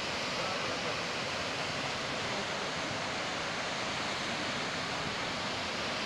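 Large waterfall in heavy flow: a steady, even rush of falling water.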